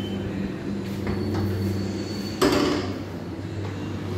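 Wardrobe cabinet doors being handled: a few light clicks, then one sharp knock about halfway through, over a steady low hum.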